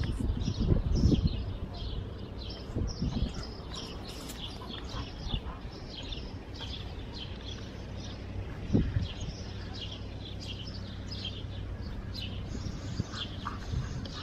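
Small birds chirping steadily, many short high chirps a second. Low thumps and rumble in the first second or two, and one more low thump about nine seconds in.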